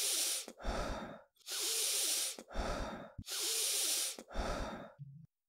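A person breathing deeply and fast in an alertness breathing drill. Three times over, a long, forceful inhale is followed by a shorter, passive exhale, about one breath cycle every second and a half.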